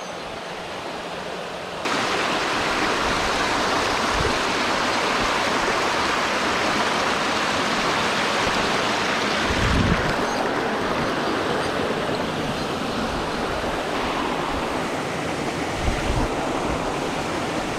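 A small waterfall and mountain stream rushing steadily, growing louder about two seconds in. A couple of brief low thumps come near the middle and near the end.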